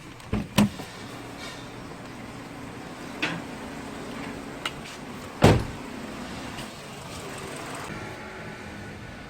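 A few sharp knocks and clicks, the loudest about five and a half seconds in, over a steady low hum.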